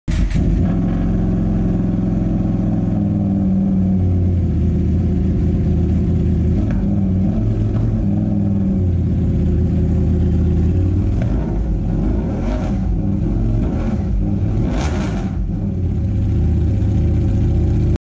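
Ducati Panigale V4's 90-degree V4 engine running through an SC Project titanium exhaust, idling with the revs raised and dropped a few times, with two short sharper throttle blips near the end.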